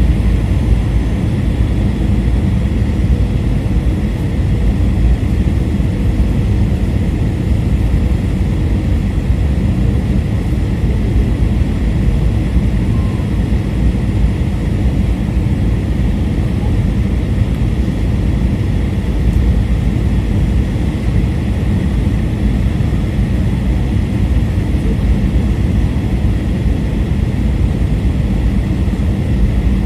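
Steady rumbling noise inside an Airbus A321 cabin, from the jet engines and the airflow around the fuselage, with a faint steady whine above it.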